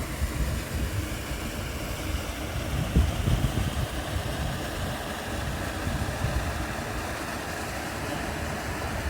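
Rushing water of a rocky moorland stream, a steady hiss, with wind buffeting the microphone in low rumbles.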